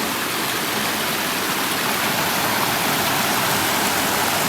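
Mountain creek rushing at a rocky trail crossing: a steady, even rush of water.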